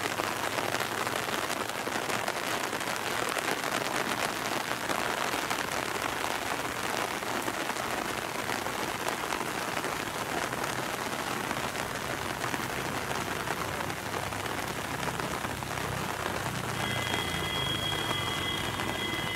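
Steady rain falling, an even hiss throughout. Near the end a low engine sound comes up and a few steady high tones appear.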